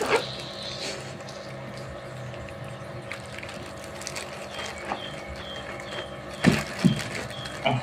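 Steady low hum of aquarium pump equipment, with plastic-bag handling at the tank's edge and two short knocks about six and a half and seven seconds in. A faint high chirp repeats a few times a second through the second half.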